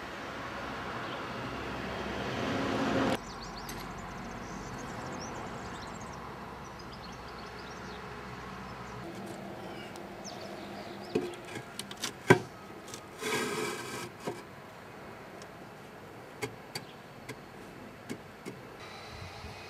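Hollow concrete blocks being laid by hand: several sharp knocks as blocks are set down against each other, the loudest about twelve seconds in, with a short scrape just after and a few lighter clicks later. A rising steady noise runs for the first three seconds and cuts off suddenly.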